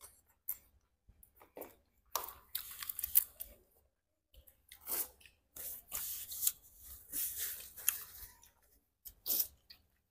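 Close-up eating sounds: shells of cooked shrimp crackling as they are peeled and bitten, with chewing, then tissue paper rustling as tissues are pulled out and used to wipe. The crackling comes in irregular bursts, thickest a couple of seconds in and again in the second half.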